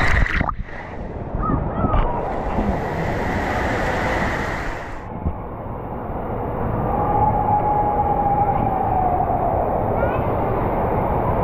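Loud, steady rush of churning, splashing water on a water-park slide ride. The highs drop out and return a couple of times, as if the microphone is being muffled.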